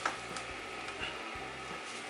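A sharp click near the start and a fainter one about a second in, over a low steady background hiss, as a hand handles the plastic heater blower housing.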